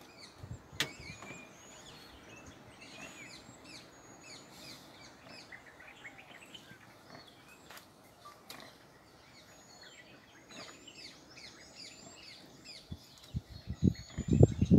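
Several birds chirping and whistling, many short high calls overlapping. Near the end comes a burst of loud low rumbling thumps.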